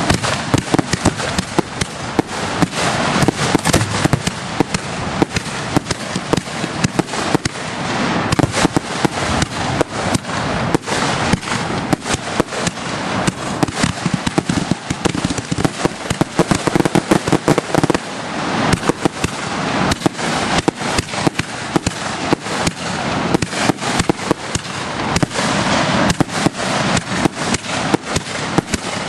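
Aerial fireworks display: shells bursting overhead in a dense, unbroken barrage of bangs and crackling.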